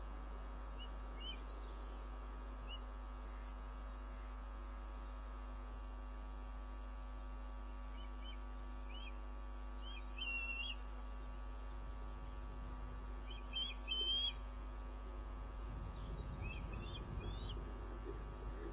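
Osprey calling on the nest: short, high whistled chirps in brief bursts, loudest about ten and fourteen seconds in, with more near the end. A steady electrical hum runs underneath.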